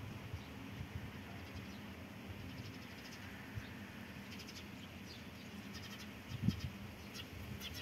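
Black cat meowing, a string of short, high calls through the middle and latter part, with a brief low rumble of wind on the microphone.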